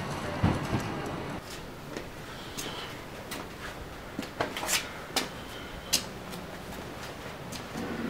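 A glass shop door being pulled shut, with two sharp knocks from its frame and latch in the first second. Then quieter outdoor ambience with scattered small clicks and a couple of brief, faint bird chirps.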